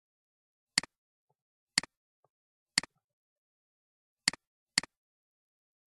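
Computer mouse button clicking five times, each click a sharp double tick of press and release, the first three about a second apart and the last two close together.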